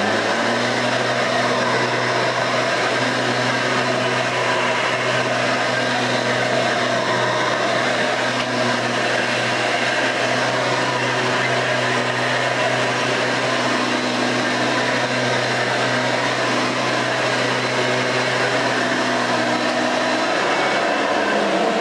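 1992 Hoover Elite II dual-purpose upright vacuum cleaner switching on and running with a steady motor drone. It shuts off shortly before the end.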